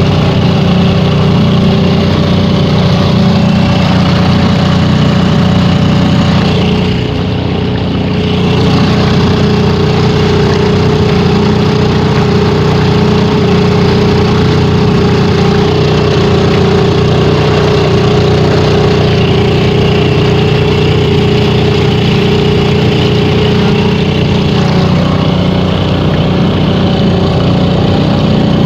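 Motorboat engine running steadily at a low, even speed, with a brief dip in loudness about seven seconds in.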